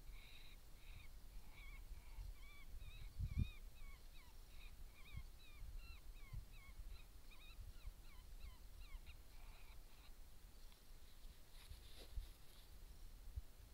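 Faint high-pitched animal yipping: a run of short, wavering notes about two a second that dies away about ten seconds in. A low thump is heard about three seconds in.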